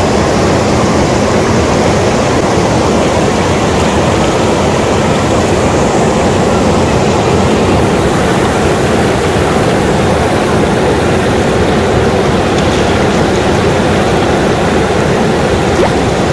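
Steady rush of fast, shallow water churning around a dense run of salmon crowding the stream mouth.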